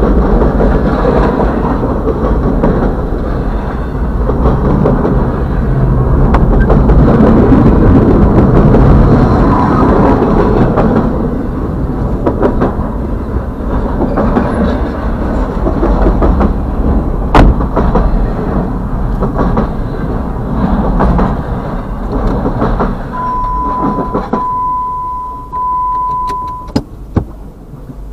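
Intermodal freight train's container-laden well cars rolling past, a dense steady rumble and rail noise that thins out as the last cars go by about 22 seconds in. Near the end a steady high tone sounds for about three seconds, broken twice, with a few sharp clicks after it.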